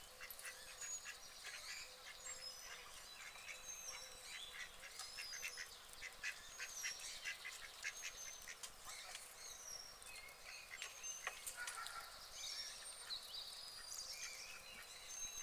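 Faint bird calls: many short chirps and whistles, with scattered quick faint clicks throughout.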